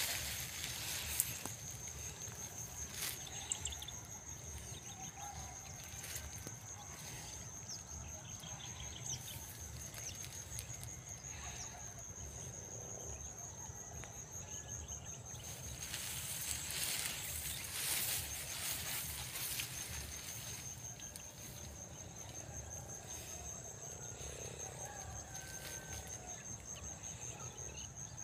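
An insect trilling steadily on one high, finely pulsed note, with soft rustling noises now and then and a longer stretch of rustling a little past the middle.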